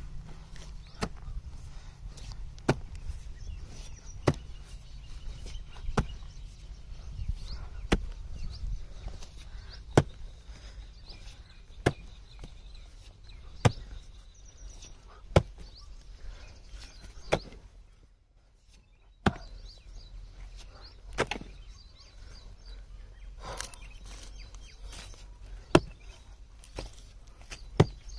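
A short-handled hoe chopping into hard, dry soil, one sharp strike about every one and a half to two seconds, with a short break a little past the middle. A low rumble runs underneath.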